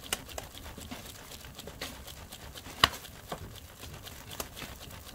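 Cooking fire crackling, with irregular small pops and one louder snap about three seconds in.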